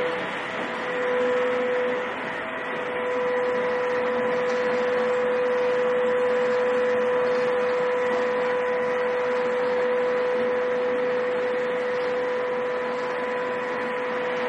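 Wood pellet production line machinery running: a steady mechanical drone with one constant, unwavering tone.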